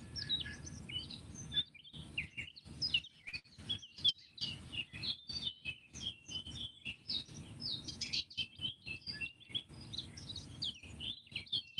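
Wild songbirds chirping and singing, many short high calls and trills overlapping without pause. The sound keeps cutting out for split seconds.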